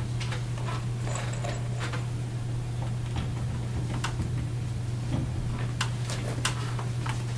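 Scattered light clicks and scrapes of a metal drapery scroll bracket being handled and fastened against a wall, with a few sharper ticks in the second half, over a steady low hum.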